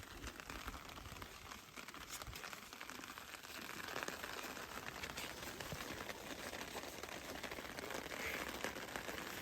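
Rain falling steadily on a tarp overhead, a dense run of small drop hits.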